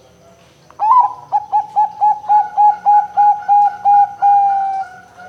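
Zebra dove (perkutut) cooing: a rising opening note, then a rapid run of about a dozen short coos, about four a second, ending on a longer held note.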